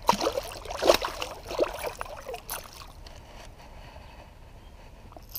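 Hooked smallmouth bass thrashing at the surface as it is played in close, with a few sharp splashes in the first couple of seconds, then quieter water lapping and trickling.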